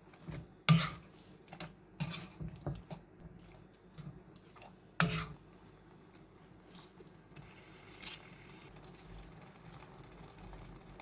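A spoon stirring thick, wet pumpkin puree in a pan, with soft squishing and a few sharp clicks of the spoon against the pan, the loudest about a second in and again about five seconds in. In the last few seconds a faint steady hiss.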